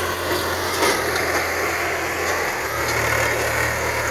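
Swaraj 855 tractor's three-cylinder diesel engine running under load as it pulls a fully loaded trolley of soil. The engine note steps up a little about two and a half seconds in.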